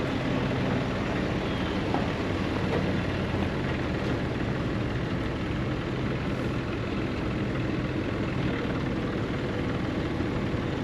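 Heavy diesel engine of a farm machine running steadily at a constant speed.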